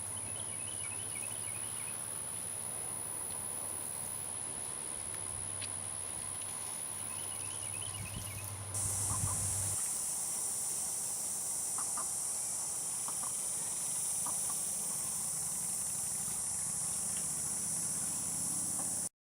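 Capybara hiccuping: a few short, faint sounds spaced about a second apart. Behind them is a steady high-pitched insect chorus that turns louder and fuller about nine seconds in.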